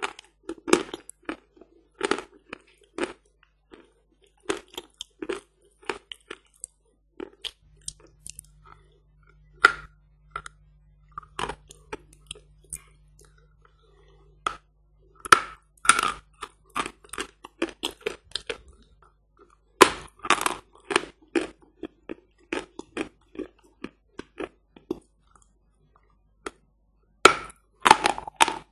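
Close-miked crunching of hard 'Badger' chalk being bitten off and chewed in the mouth: irregular sharp snaps and grinding crunches, a quiet spell of a few seconds near the end, then a burst of loud crunches as a fresh piece is bitten.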